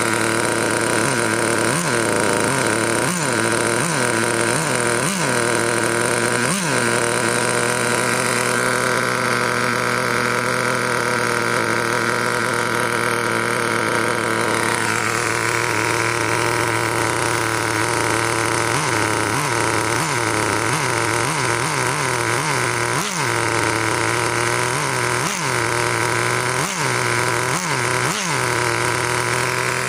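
Traxxas 2.5 two-stroke nitro engine in a T-Maxx running at a steady idle, with a run of short throttle blips in the first several seconds and another cluster in the last ten or so. In the middle the pitch drops back down to idle. This is a second-hand replacement engine, and it is idling lovely.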